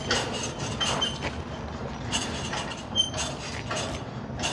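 Crane lifting a car in straps: a steady low engine rumble with repeated metallic clanks and short high squeaks.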